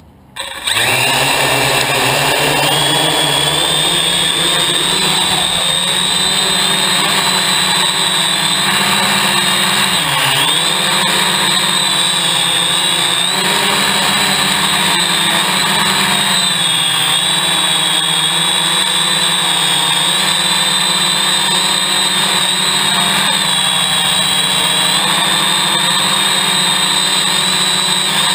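Hexacopter's electric motors and propellers spinning up suddenly about half a second in, then running as a loud, steady whine whose pitch wavers slightly as the craft lifts off and flies. Heard very close, from a camera mounted on the craft.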